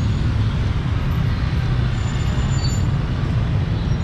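Street ambience: a steady low rumble of road traffic with no distinct single event.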